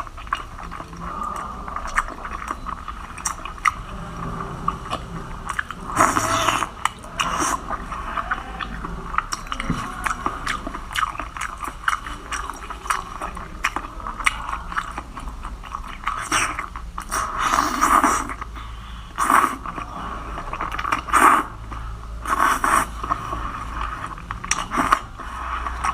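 A person eating seafood close to the microphone: repeated biting and chewing with crunching, clicking and scraping mouth and food sounds, with several louder crunchy bites scattered through.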